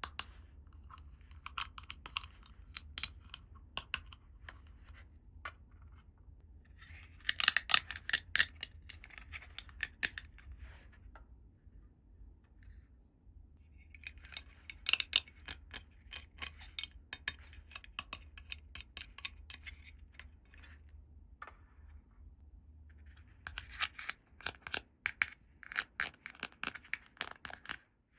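Miniature plastic toy pieces and their packaging handled close to the microphone: quick clicks, taps and crinkly rustles in three busy spells, about seven, fifteen and twenty-five seconds in, with sparser handling between.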